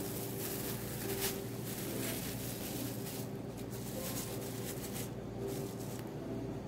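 Clear plastic film crinkling and rustling in short bursts as it is handled and peeled back from a rolled raw chicken, over a steady low hum.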